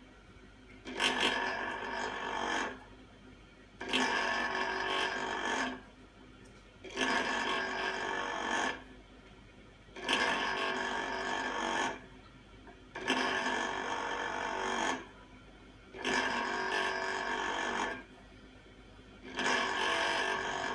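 Common rail injector valve lapping machine: a lightly worn valve plug is pressed by hand onto the motor-driven lapping spindle with lapping paste, giving a grinding rasp of about one and a half seconds, seven times about three seconds apart, quieter between strokes.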